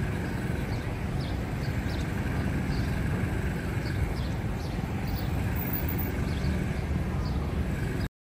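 Outdoor city street ambience: a steady low rumble of traffic with short, high chirps scattered through it, cutting off suddenly near the end.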